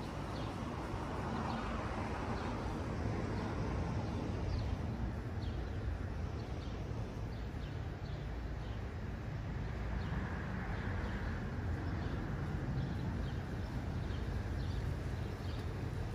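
Outdoor street ambience: a steady low rumble, swelling briefly twice, with faint short high chirps repeating about once or twice a second.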